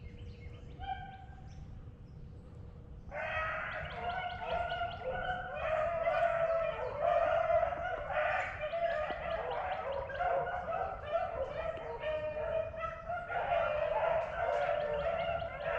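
Pack of beagles baying on a swamp rabbit's trail: many dogs calling over one another in a continuing chorus that comes in suddenly about three seconds in. Wind noise rumbles underneath.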